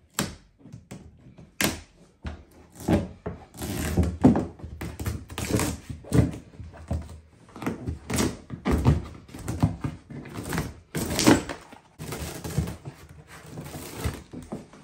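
Old foam deck matting being pried up with a razor blade and peeled off a plastic kayak deck: irregular scraping, tearing and handling noise with short knocks against the hull.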